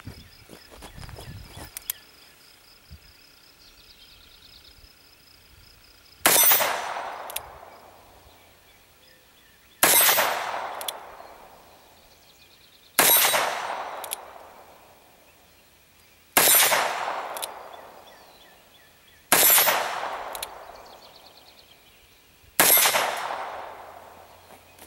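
Six shots from a Ruger Single Six single-action revolver firing .22 Magnum (.22 WMR) rounds through its 9.5-inch barrel. The first comes about six seconds in, then one roughly every three seconds. Each is a sharp crack that trails off over a second or so.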